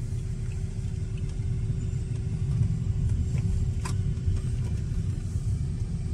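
Car driving slowly, heard from inside the cabin: a steady low rumble of engine and tyres, with a single short click about four seconds in.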